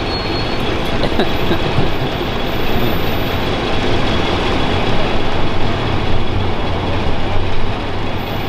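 Steady rumble of heavy vehicle engines idling and road traffic, with a low engine hum that grows stronger in the second half.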